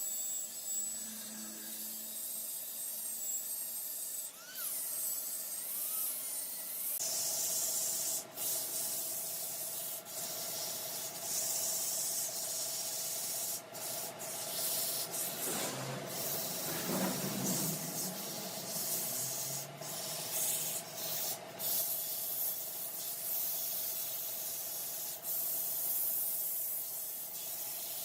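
Large wood lathe running, with a steady abrasive hiss of sandpaper or a tool on the spinning wood. It gets louder about seven seconds in.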